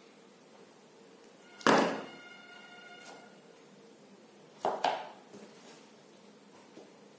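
A metal wire stripper set down on a tabletop with a sharp knock and a short metallic ring. A softer double knock follows a few seconds later.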